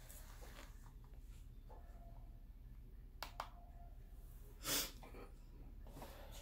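Two quick light clicks about three seconds in, from pressing the power button on a UV gel-nail curing lamp, followed a second later by a short huff of breath, over low room hum.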